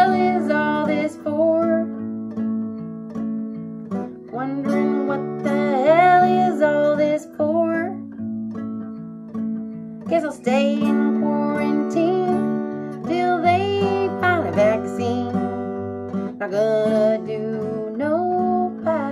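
A woman singing while strumming an acoustic guitar, her sung lines coming in phrases with short guitar-only gaps between them.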